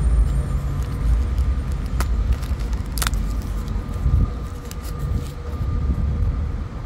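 Handling noise from unpacking small camera accessories, with two sharp clicks about two and three seconds in and light rattling, over a steady low rumble.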